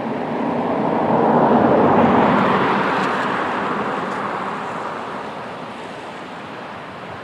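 A passing vehicle: a steady rushing noise that swells to a peak about two seconds in, then fades away.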